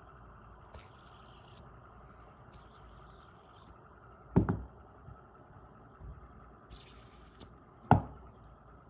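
Tri-spinner fidget spinner flicked and spun in several short bursts, its bearing giving a high whirring hiss each time. Two sharp clicks of fingers knocking against the spinner in the second half, the later one the loudest.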